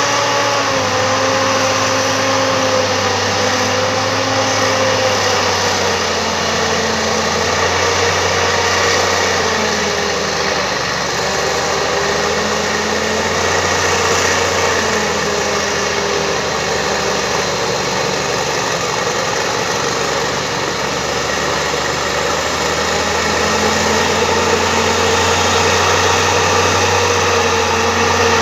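Bulldozer's diesel engine running steadily, its pitch drifting gently up and down.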